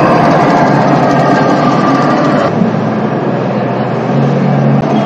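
Remote-controlled model trucks running, an engine-like hum over a dense background din; the sound shifts abruptly about halfway through.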